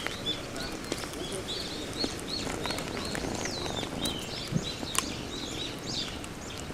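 A small bird chirping: a quick run of short, high chirps, about two or three a second, over a steady hiss with a few faint clicks.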